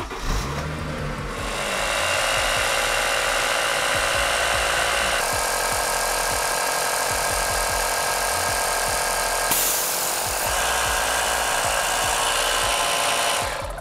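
Small portable air compressor running steadily as it pumps air into a car's rear air shocks. Its tone shifts slightly about five seconds in, and a brief burst of high hiss comes about nine and a half seconds in.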